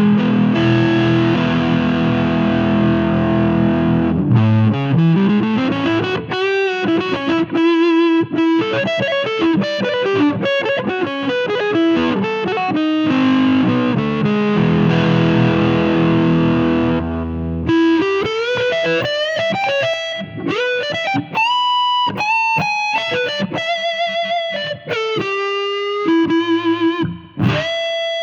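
Electric guitar played through a Cardian Effector C6H8O6 'Vitamin C' fuzz pedal: thick, fuzzy chords and sustained notes with slides. About eighteen seconds in, it changes to a cleaner-sounding single-note lead line with bends and vibrato.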